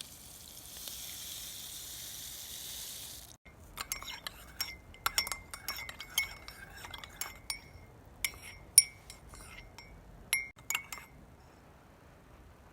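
A steady hiss for about three seconds, then a run of sharp, ringing clinks of hard objects striking one another, irregular and sometimes close together, stopping about eleven seconds in.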